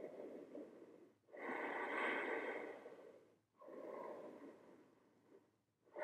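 A person breathing heavily while holding a handstand: three long, noisy breaths with short pauses between them, the second the loudest.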